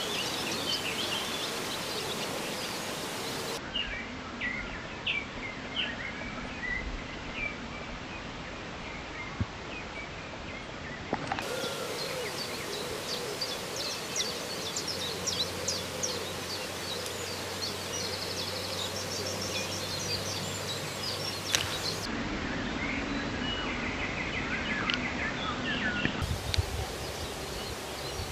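Songbirds singing in a dawn chorus: many short chirps and phrases over a steady outdoor hiss. The background changes abruptly a few times.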